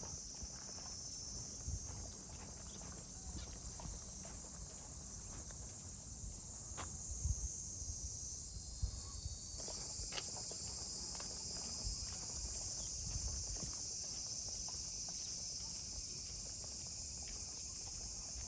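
Steady high-pitched insect chorus, with scattered soft knocks and taps underneath.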